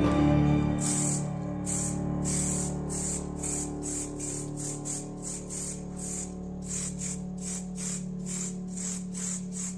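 Aerosol spray-paint can hissing in short bursts, about two or three a second, starting about a second in, over background music with steady low tones.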